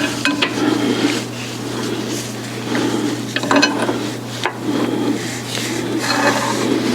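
Rubbing, scraping and scattered clicks of hands twisting at a stuck oil filter under a car, over a steady low hum.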